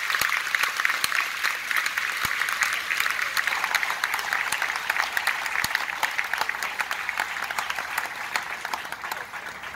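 Audience and performers applauding: many hands clapping, easing off slightly toward the end.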